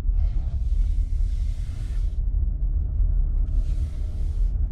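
Ford pickup truck driving slowly, heard from inside the cab: a steady low rumble, with two stretches of hiss, the first about two seconds long and the second shorter, near the end.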